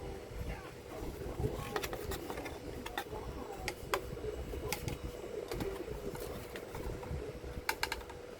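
Light clicks and taps from a plasma TV power board and its screws being handled and fitted back into the set, scattered irregularly with a small cluster near the end, over a faint steady hum.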